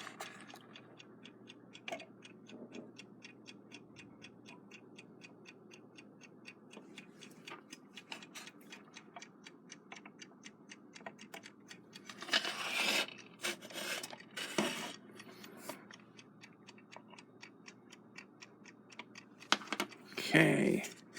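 Rebuilt Westclox Big Ben Chime Alarm movement ticking fast and evenly, showing the movement is running. Louder scraping and rubbing from the hands being fitted come twice around the middle and again near the end.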